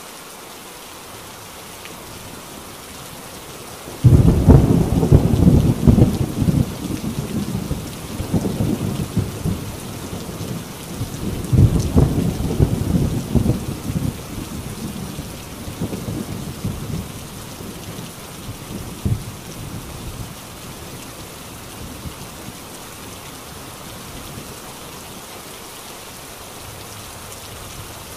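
Steady heavy rain on a tin roof, with a clap of thunder breaking in suddenly about four seconds in. The thunder rolls on, swells again about halfway through, and dies away, leaving the rain alone.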